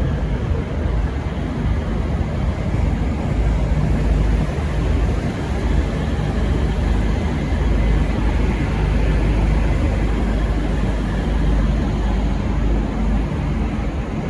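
V/Line VLocity diesel railcar set running as it departs: a steady, deep rumble of engines and wheels.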